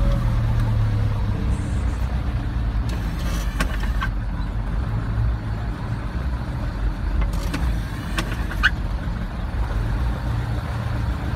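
Vehicle engine idling, a steady low rumble heard from inside the cab, with a few faint clicks.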